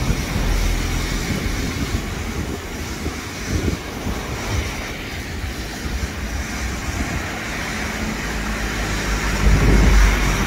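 Steam hissing from the open cylinder drain cocks of LMS 'Black 5' 4-6-0 steam locomotive 45212, over a low rumble that grows louder near the end.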